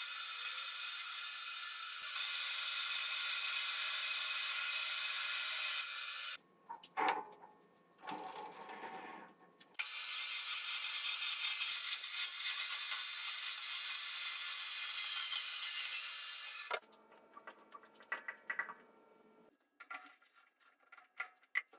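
Metal lathe running with a carbide turning tool cutting the spinning rod: a steady high-pitched hiss and whine. It stops about six seconds in, gives way to a few knocks and handling sounds, runs and cuts again from about ten to seventeen seconds, then only scattered clicks and knocks as the chuck is worked with a chuck key.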